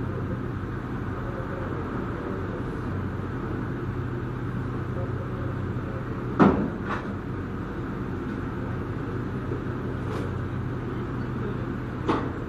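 Kitchen background: a steady low mechanical hum with a few sharp knocks and clatters, the loudest about six seconds in and another near the end.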